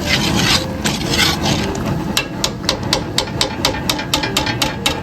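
Seasoning shaker shaken over the pot: a rapid, even run of sharp knocks, about five a second, starting about two seconds in, over a steady low rumble.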